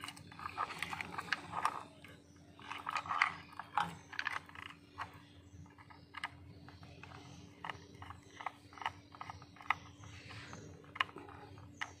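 Irregular small clicks and scrapes of a screwdriver working the screw terminals on a Burkert flow meter's electronics board, over a steady low hum.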